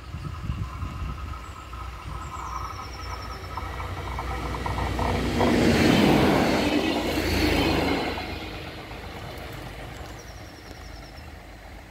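Regional multiple-unit train approaching and running past at close range, loudest about six to eight seconds in, then fading as it moves away along the track.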